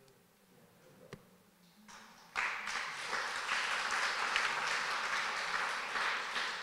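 Small audience applauding, the clapping setting in suddenly about two seconds in after a quiet pause and then going on evenly.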